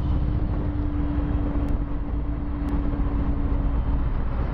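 Harley-Davidson Low Rider S V-twin engine running under way, heard through a helmet microphone under a dense rumble of wind and road noise. A steady hum runs with it and drops out a little before the end.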